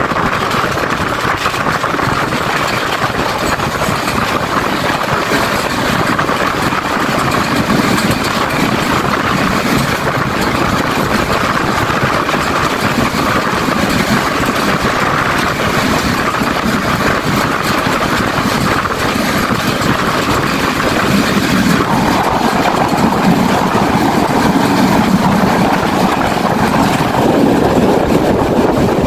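Passenger train running at speed, heard from an open carriage doorway: a steady, loud rumble and rattle of the wheels on the rails, mixed with rushing air.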